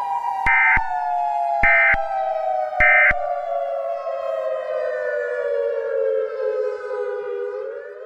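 Civil defense siren wailing, its pitch falling slowly and turning up again near the end. Over it come three short electronic data bursts, about a second apart in the first few seconds: the Emergency Alert System end-of-message tones closing the alert.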